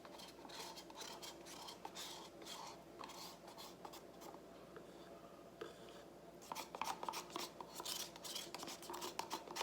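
Faint, quick scraping and clicking of a stick in a cup as gold acrylic paint is scraped out and mixed. The strokes thin out for a couple of seconds just before the middle, then come thick and fast again.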